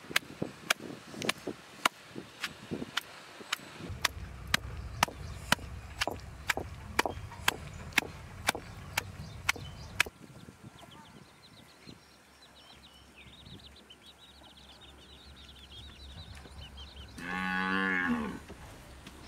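Wooden pestle pounding chopped onions in a granite stone mortar, about three sharp strikes a second for the first ten seconds. Near the end a cow moos once, a long call.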